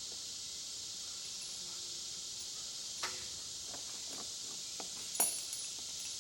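Steady high-pitched hiss with a few scattered light clicks and snaps, the loudest about five seconds in.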